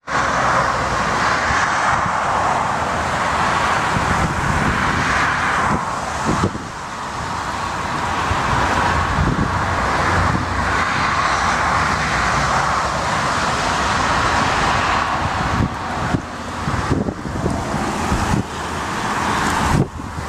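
Boeing 777 airliner's twin jet engines on final approach and landing, a loud steady rushing noise. Wind gusts buffet the microphone in the last few seconds.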